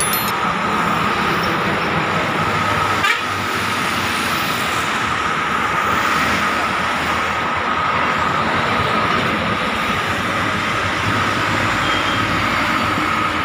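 Steady roadside traffic noise with a constant high whine running through it, and a single sharp click about three seconds in.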